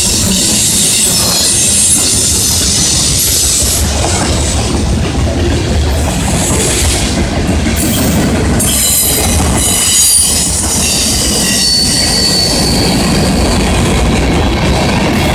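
Freight cars of a mixed freight train of covered hoppers and boxcars rolling past close by, with a steady low rumble of wheels on rail. High-pitched wheel squeal comes and goes, strongest in the first few seconds and again about nine to thirteen seconds in.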